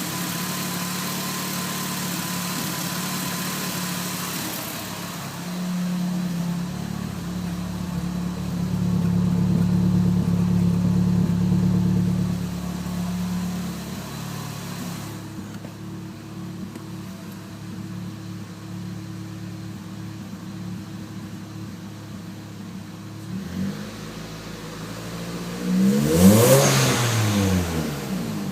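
Nissan SR20DET turbocharged four-cylinder engine running, held at a raised idle for several seconds, then settling back and given one quick rev that rises and falls near the end. The owner suspects a bad exhaust leak where the T28 turbo flange bolts to the manifold.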